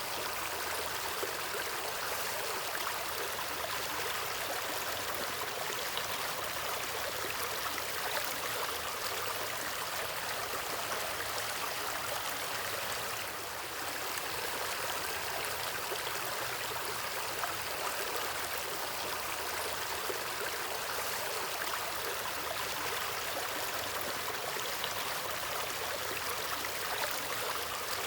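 Water of a stream flowing steadily over rocks, an even rushing and babbling that holds its level throughout.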